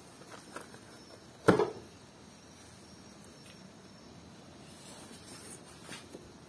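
One sharp knock about one and a half seconds in, as of a hard object set down on a workbench, with a few faint clicks and handling noises around it.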